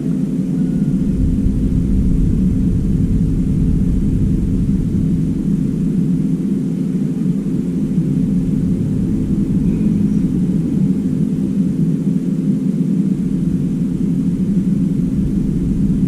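A steady low mechanical drone with a constant hum in it.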